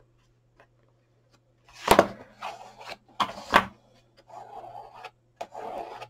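A card-stock box knocked against a tabletop as it is handled and set down, with two sharp knocks about two and three and a half seconds in. After that comes a bone folder rubbing along the card's folds: a soft scraping in short strokes.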